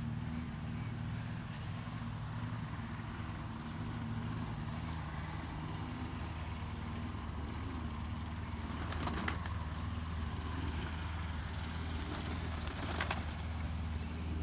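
A steady low mechanical hum, with a couple of sharp wing claps from Indian Fantail pigeons flapping up, about two-thirds of the way in and again near the end.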